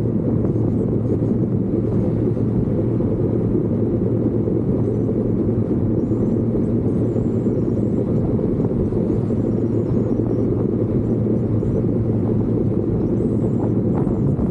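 Steady low rumble of a moving vehicle, with an even engine drone underneath.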